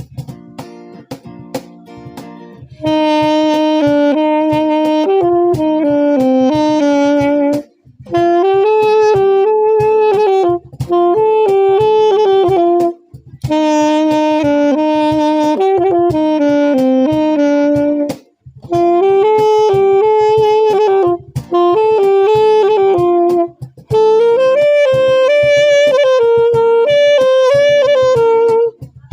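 Saxophone playing a slow melody in phrases of long held notes, with short breaks for breath between phrases. A strummed guitar plays alone for the first few seconds before the saxophone comes in and carries on underneath it.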